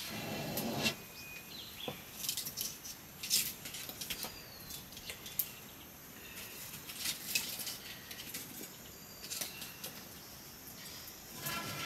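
Cooking over an open wood fire: scattered light clicks, ticks and scrapes from the fire and a metal pot being stirred, with a few short high chirps.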